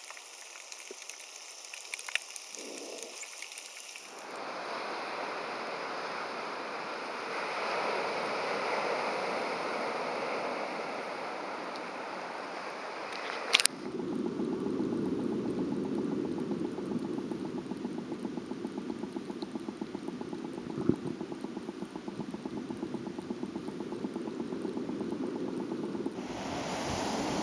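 Muffled water sloshing as heard underwater in a shallow tidal pool, a steady rushing hiss. About halfway through a sharp click, after which the water sound is deeper with a fine, rapid ticking.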